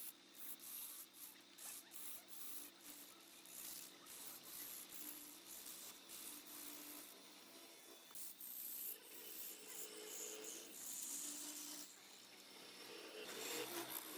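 Wood lathe running with a steady low hum while a hand tool rubs and scrapes against the spinning wood, a raspy hiss that swells and fades.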